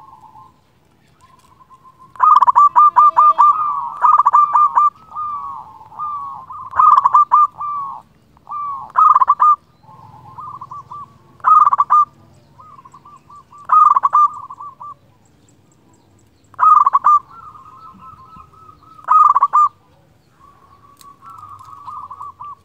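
Zebra dove (perkutut) singing its rapid, trilled cooing phrases over and over, a loud phrase every two to three seconds with softer trills between.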